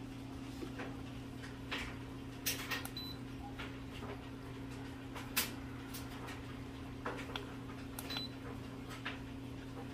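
Faint clicks and taps from handling the Hygger HG921 aquarium heater's handheld controller, its button pressed to set the temperature down, over a steady low hum.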